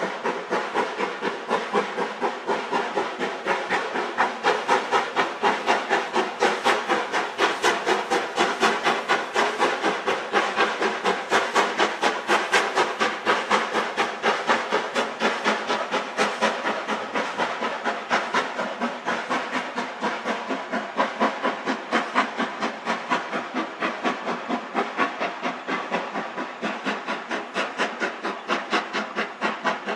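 LMS Black Five 4-6-0 steam locomotive working hard with a train, its two-cylinder exhaust beating out a quick, even chuff with a hiss of steam.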